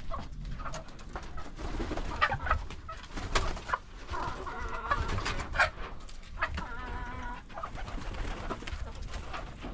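Farmyard birds calling in many short repeated notes as they gather for food.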